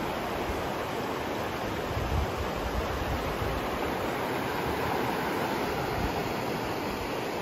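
The North Fork of the Virgin River rushing steadily over rocks and shallow rapids.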